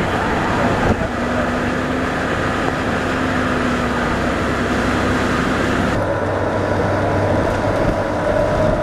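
Steady rush of wind and vehicle noise through an open car window, with a low engine hum underneath. About six seconds in the hiss drops away suddenly, leaving a steadier hum.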